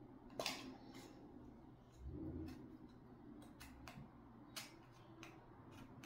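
Faint, scattered clicks and light taps of thin wooden craft pieces being handled, with a soft dull bump about two seconds in.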